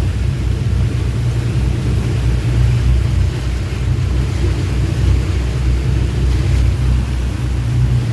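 Motorboat engine running steadily, a loud, continuous low rumble.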